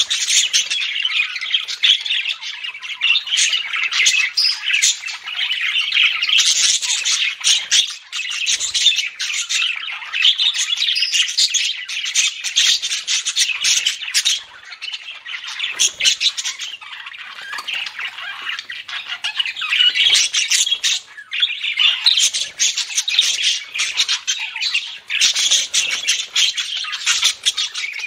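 Budgerigars chirping and chattering together in a continuous dense stream of calls, with brief lulls about 8, 15 and 21 seconds in.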